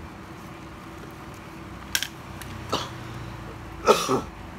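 A couple of light clicks, then a man briefly clearing his throat about four seconds in.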